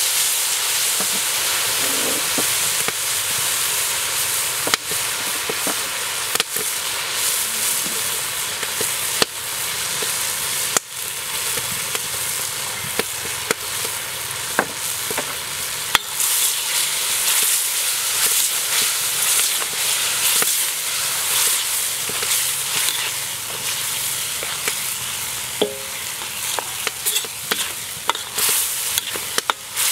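Sauce, onions and meat sizzling steadily in a hot wok, with sharp clicks and scrapes of a metal ladle against the wok that come more often near the end as the food is stirred.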